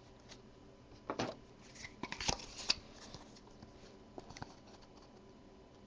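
Faint rustling and clicking of trading cards being handled and shuffled through, with a burst of rustles about a second in and a longer one around two seconds in.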